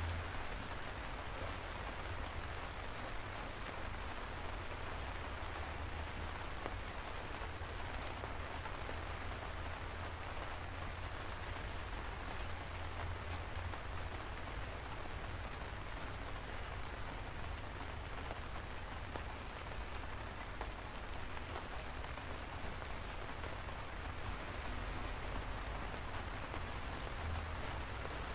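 Steady rain falling: an even hiss with a few sharper drop ticks scattered through it, over a low rumble.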